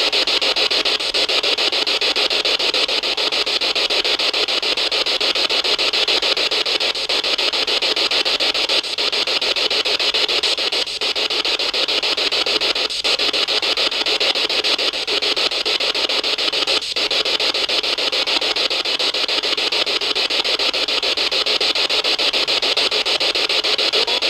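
A steady, loud hiss, briefly dipping three times around the middle.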